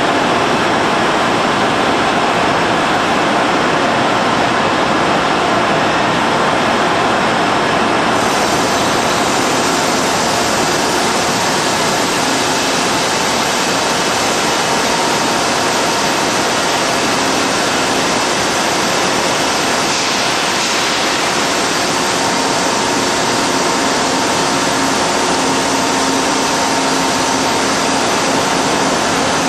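Kyocera MSR heavy milling cutter with carbide inserts cutting into a ship engine block: a loud, steady, dense noise of heavy metal cutting with faint steady tones underneath, a little brighter from about eight seconds in.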